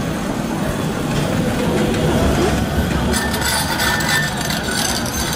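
Manchester Metrolink M5000 tram rolling slowly past on street track: a steady low rumble of its wheels and running gear.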